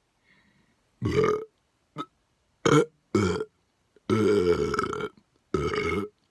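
A person burping deliberately over and over: five full burps and one short blip in quick succession, with the longest, about a second long, a little past the middle.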